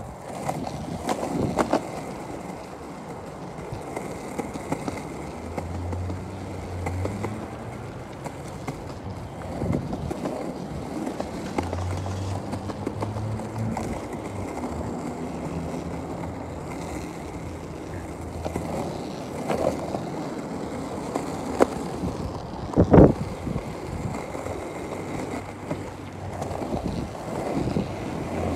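Skateboard rolling, its wheels giving a continuous rumble broken by scattered clicks and one loud knock about three-quarters of the way through.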